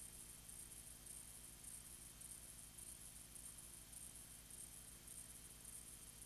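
Near silence: a faint, steady hum and hiss from an empty soundtrack.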